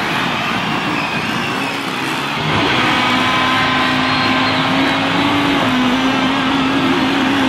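Motocross dirt bike engines running as riders go past on the track. About two and a half seconds in, one bike's engine comes up louder and holds a steady, nearly constant pitch.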